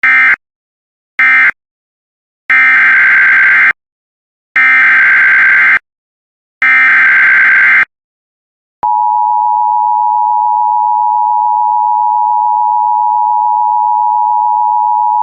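Emergency Alert System data tones: two short digital bursts end the previous message, then three longer buzzing data bursts about two seconds apart carry the header of the next alert. About nine seconds in, a steady, loud attention tone starts and holds.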